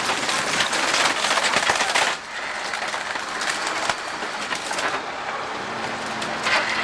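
Dense crunching and crackling of breaking wood and debris as a building is demolished. It is loudest for the first two seconds, then drops off sharply and carries on more quietly.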